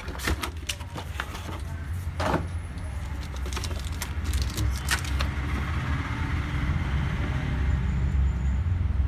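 Rustling and clicking of unboxing: a paper manual, plastic-bagged parts and a metal I/O shield handled, with several sharp clicks in the first half. Under it a steady low rumble that grows somewhat louder in the second half.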